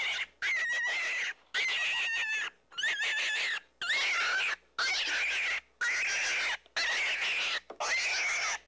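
A small animal's high-pitched calls, about eight in a row, each roughly a second long with a wavering pitch and separated by sudden silences.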